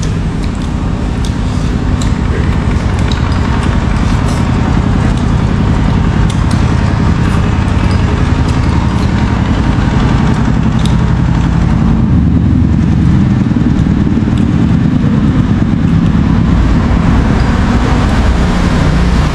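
A motor vehicle's engine running steadily close by, a low rumble that barely changes, with a few light clicks over it.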